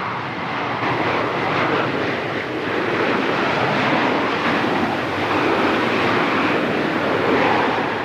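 Air Force One, a four-engined Boeing 747 (VC-25A) jet, landing on a runway: a steady, even rush of jet noise as it touches down.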